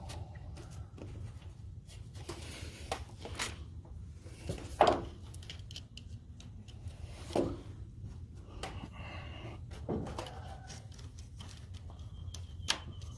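Scattered light knocks and clicks of objects being handled, the loudest about five seconds in, over a steady low hum.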